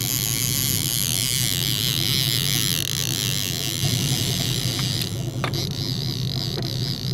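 Trolling boat's engine running with a steady low drone, a high wavering whine over it while a hooked fish is reeled in on a trolling rod. A few light knocks come in the second half.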